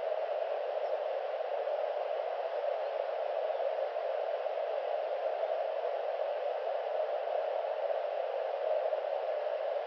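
A steady, dull hiss like static, unchanging throughout with no distinct sounds standing out.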